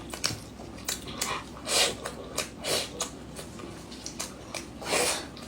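A person biting and chewing food close to the microphone: a few short noisy bursts over several seconds, with small clicks between them.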